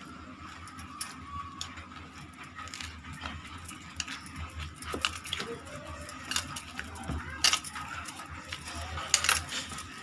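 Hands kneading stiff dough in a bowl, working in a little oil: irregular soft clicks and taps, a few sharper ones near the end, over a faint steady hum.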